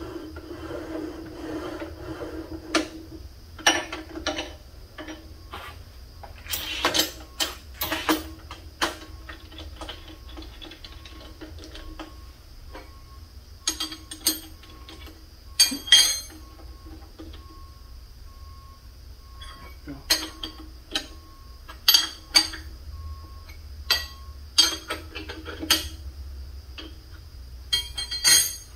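Irregular metal clanks, knocks and scrapes of a steel milling vise being slid and set on the cast-iron table of a Bridgeport milling machine, with wrench clinks as it is tightened down. A steady machine-shop hum runs underneath.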